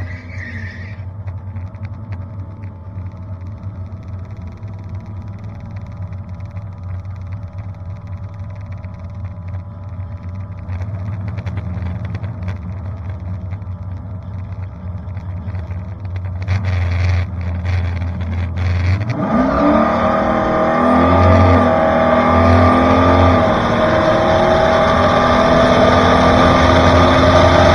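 G-body Chevrolet Malibu's supercharged 383 small-block V8 idling in the staging lanes, then going to full throttle about 19 seconds in and pulling hard down the drag strip, much louder, with the pitch climbing.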